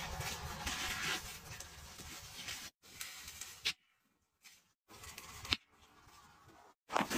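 Rubber-gloved hand pressing and crumbling caked baking soda and scent-crystal powder in a washing machine drum, a gritty crunching and rubbing with a couple of sharp clicks. The sound cuts out abruptly a few times.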